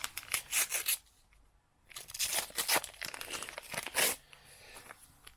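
Foil trading card packets being torn open and crinkled, in scratchy bursts broken by about a second of dead silence.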